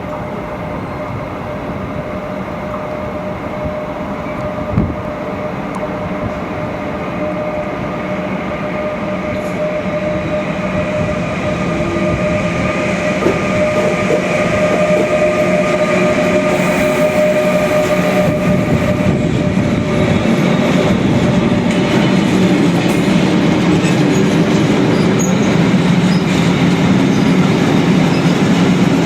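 DB class 152 electric locomotive hauling a container freight train, its wheels rumbling on the rails with a few steady tones on top, growing steadily louder as it approaches. A single sharp knock about five seconds in.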